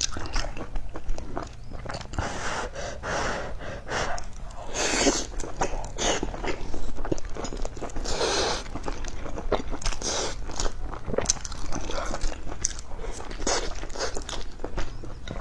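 Crunchy fried chicken being bitten and chewed close to the microphone: a string of short crackles and crunching bites.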